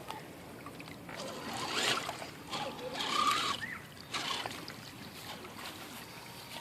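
HPI Crawler King RC rock crawler driving through shallow creek water, its tires churning and splashing the water, which swells twice, about two and three seconds in.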